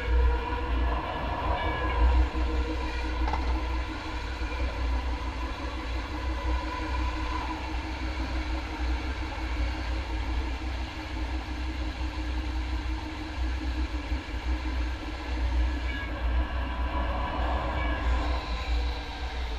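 MAX light rail train running along the track: a steady low rumble with a whine whose pitch drifts slightly.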